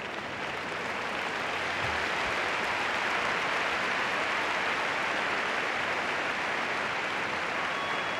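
Large arena crowd applauding, swelling over the first couple of seconds and then holding steady.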